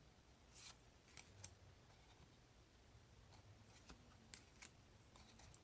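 Faint clicks and light rustles of tarot cards being handled and turned over, about ten short sounds spread unevenly over a quiet room.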